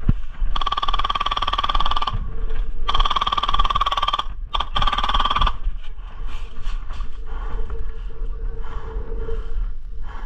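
Airsoft replica firing on full auto: two long, rapid bursts of about one and a half and two and a half seconds, with a mechanical whine running through each, followed by fainter scattered firing. Wind rumbles on the microphone throughout.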